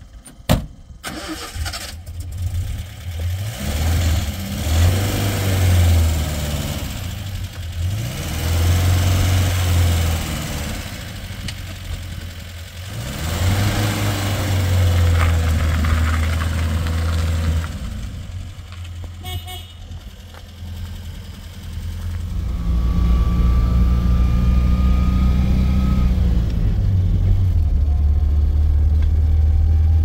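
Old Paykan sedan's four-cylinder engine revved in repeated surges, each rising and falling in pitch. About 22 s in it settles into a steady, louder run under way, heard from inside the cabin, with a faint rising whine for a few seconds.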